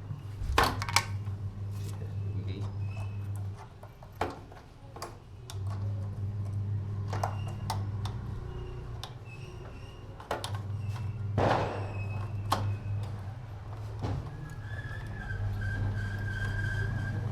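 Scattered clicks and knocks of hands and tools working the radiator hoses loose on a motorcycle, the loudest knock about two-thirds of the way in. Under them is a low hum that comes and goes, with a faint high whine near the end.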